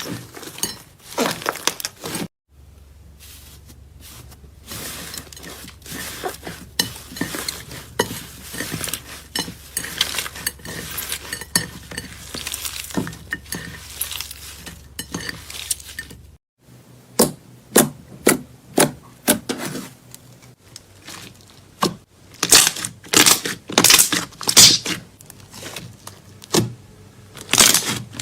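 Slime being squeezed and pressed by hand, giving a dense run of small crackles, pops and clicks. Near the end come louder, separate snaps at about two a second.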